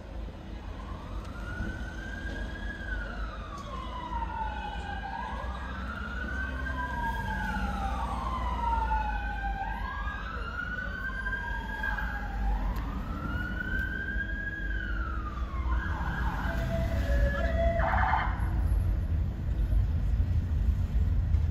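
Garda police vehicle sirens wailing in slow rising and falling sweeps, two of them overlapping out of step. Near the end they switch to a fast yelp for about two seconds, then stop. Under them is the low rumble of city traffic, heard from inside a car.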